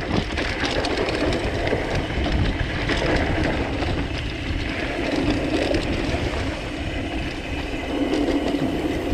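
Loaded bikepacking bike riding down a bumpy dirt singletrack, heard from a handlebar-mounted camera: a steady rush of wind on the microphone under a constant clatter of the bike and its bags rattling over the bumps.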